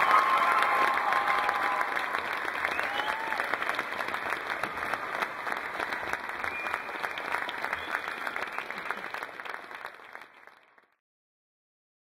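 Audience applauding, a dense patter of many hands clapping, fading out about ten seconds in.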